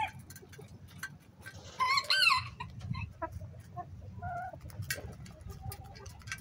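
Hens clucking while they peck feed from a black metal picnic-table feeder, with many short sharp taps of beaks in the feed tray. A louder pair of clucking calls comes about two seconds in, with softer clucks later, over a low rumble.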